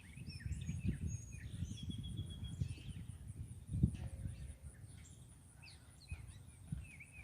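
Small songbirds chirping and calling in short, scattered notes over a low rumble.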